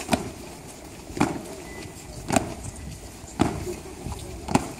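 Honour guard's boots stamping on stone paving in unison as the soldiers march in slow, high-kicking step: one sharp stamp about every second, five in all.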